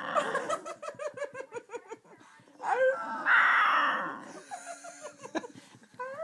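Cocker spaniel howling ('singing'): a fast, wavering string of short yelping notes, then a louder, longer howl about three seconds in, trailing off into softer whines.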